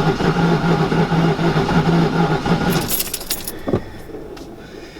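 Starter cranking a Ford 4.6 V8, which spins over fast and evenly without firing: it has no compression, from a blown head gasket. The cranking stops about two and a half seconds in, followed by a brief metallic rattle.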